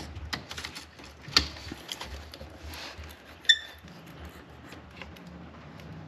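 Clicks and light knocks of hands working a hard line and its clip loose over an engine. Two sharper clicks stand out, about a second and a half and three and a half seconds in, the second with a short metallic ring.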